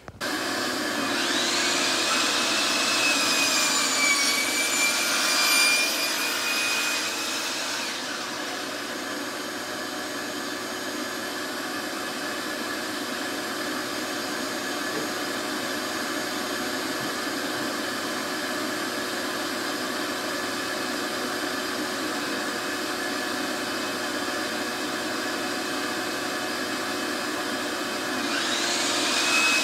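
Shop vacuum running steadily on the dust hose of a DeWalt sliding miter saw. The saw's motor whine rides over it from about a second in to about eight seconds in, and starts up again just before the end as the saw comes down on a plywood panel.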